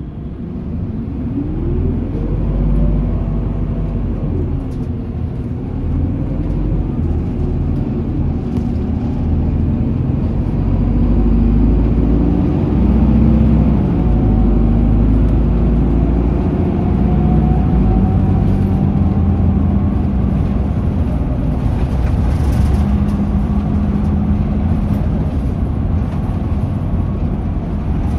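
Running noise of a 2020 Isuzu Erga city bus under way, heard from inside: the diesel engine and drivetrain rumble steadily over road noise, with a whine rising in pitch as it picks up speed in the first few seconds and again mid-way.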